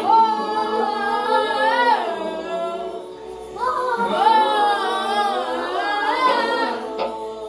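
A song playing, dominated by a singing voice that holds long, wavering notes in two phrases, with a short lull about two seconds in and little backing heard.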